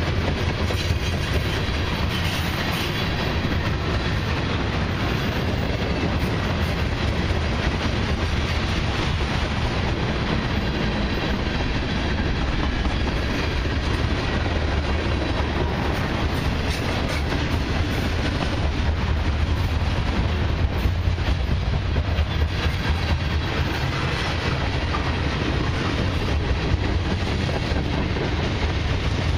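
Freight cars of a long mixed freight train, tank cars and covered hoppers, rolling past close by: a steady rumble of steel wheels on the rails with clickety-clack, and a few sharper clacks about two-thirds of the way through.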